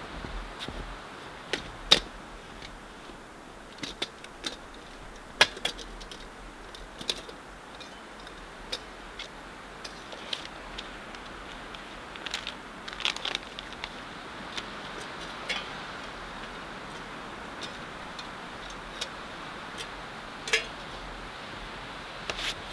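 Metal cookware and wood-stove parts being handled: scattered, irregular sharp clinks and knocks, the loudest about two seconds and about five seconds in, over a steady low hiss.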